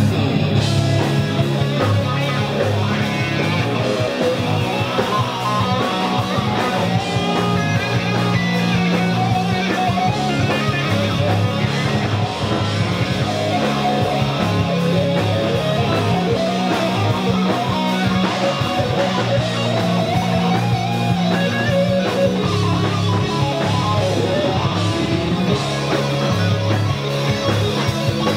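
Live rock band playing hard rock: electric guitars over bass and drums, with a wavering melodic line above a steady low end.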